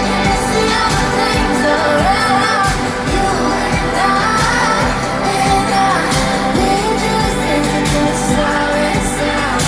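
Live pop song played over a concert sound system: a steady beat under a sung vocal line.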